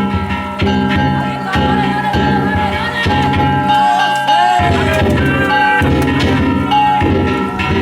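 Danjiri festival float percussion: taiko drum beats struck in a loose rhythm under the steady ringing of metal kane gongs, with a brief falling tone about four seconds in.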